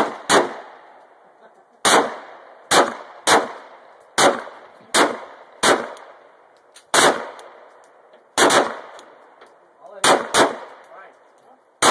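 Glock 17 9mm pistol firing a string of about fourteen shots at an uneven pace, several in quick pairs, each shot followed by a short echo.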